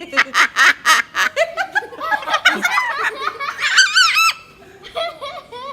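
Laughter: a quick run of 'ha-ha-ha' pulses, about seven a second, in the first second or so, then higher, gliding laughs around the middle that fade near the end.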